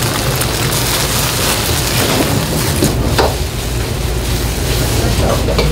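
Egg and rice sizzling in a hot wok while a ladle stirs and tosses the fried rice, with short scrapes and knocks of the metal ladle against the wok, over a steady low rumble.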